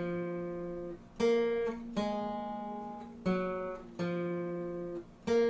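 Music: a slow acoustic guitar, one chord strummed about every second and left to ring and fade before the next.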